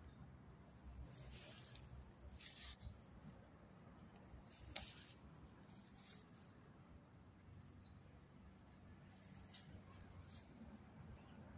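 Faint background with a bird giving four short chirps that fall in pitch, a couple of seconds apart. A few brief hissy rustles come in between them.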